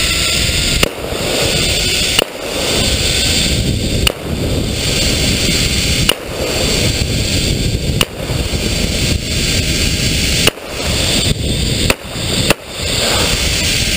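Zipline trolley running fast along the steel cable, with a steady rush of wind and rolling noise, broken by about eight sharp cracks, one every one to two seconds.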